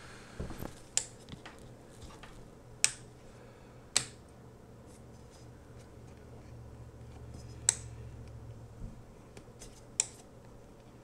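Sharp clicks of the switches on the Mars Hydro FC3000 LED grow light's driver and dimmer box being flipped, about five in all, spaced a second or more apart.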